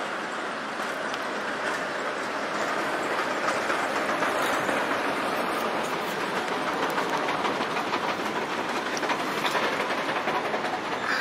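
Articulated tram passing close by, its steel wheels running on the street rails with light clicks. It grows louder over the first few seconds as it draws alongside.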